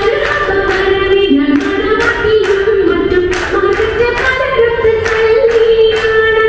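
Female voices singing a Malayalam folk song, with sharp hand claps keeping an even beat about three times a second.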